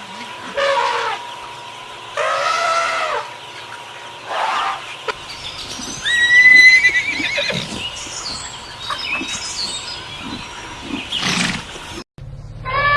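A horse neighing and whinnying in a series of separate calls, the loudest about six seconds in with a high, quavering tone. Near the end the sound cuts off and a different steady pitched sound begins.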